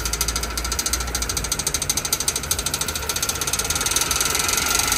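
Homemade bicycle automatic gear-changer (spring-loaded cone variator) and chain drive turning steadily under hand pedalling, with a rapid, even mechanical clicking and a faint steady whine.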